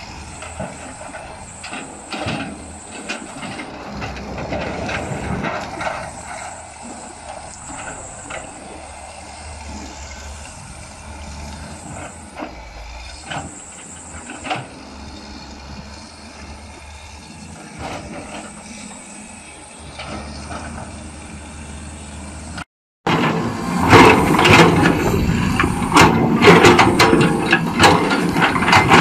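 Caterpillar tracked excavator running while working through brush, with scattered cracks and snaps. After a short break about three quarters in, it is much louder: engine under load with the steel bucket knocking and scraping through stony soil.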